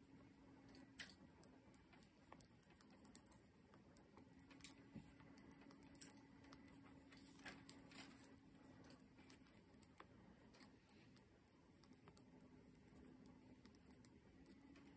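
Faint, irregular clicking of knitting needles as stitches are worked, a few clicks a second, over a faint low hum.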